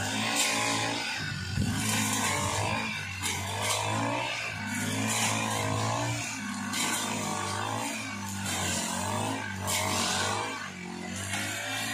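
Several petrol brush cutters running at once, their engines revving up and easing off every second or so as the cutting heads swing through tall dry grass.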